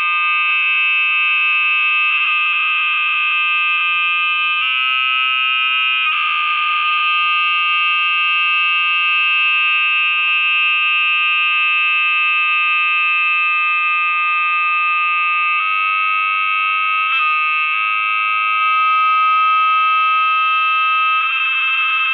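Loud, steady high-pitched electronic drone made of several held tones at once, the kind of ringing built up when audio is screen-recorded over and over through a phone. Its texture shifts every few seconds, with fluttering, stuttering stretches near the start, about six seconds in, and again around sixteen and twenty-one seconds in.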